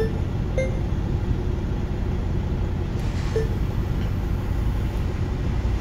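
Camper van's engine idling with a steady low rumble, heard from inside the cab. A few short, faint beeps come from the touchscreen stereo as its buttons are pressed, near the start and again about three seconds in.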